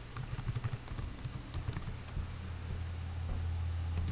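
Typing on a computer keyboard: a quick run of keystrokes, mostly in the first half. From about halfway a low, steady hum comes up underneath.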